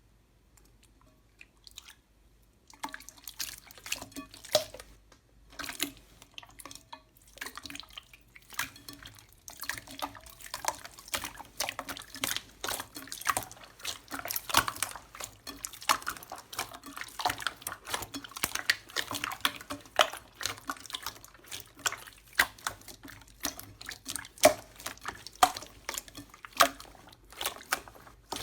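Slime worked by hand, giving a dense run of wet clicks, pops and squelches that starts about three seconds in.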